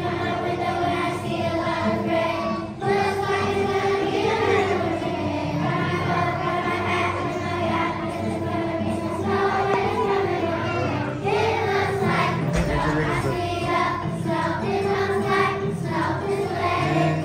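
A large children's choir singing a song together, many young voices in unison.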